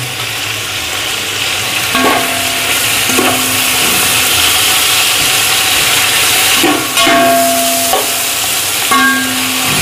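Chicken and tomatoes sizzling in hot oil in a metal pot while a metal slotted spoon stirs them. The spoon scrapes and knocks against the pot about five times, and the pot rings briefly after each knock.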